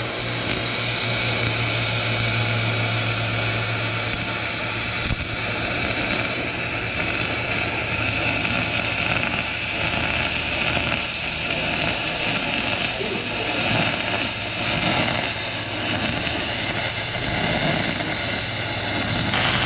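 MIG welding arc running one long continuous bead on an aluminium engine block: a steady, loud hiss and buzz that starts just at the outset and cuts off just after the end.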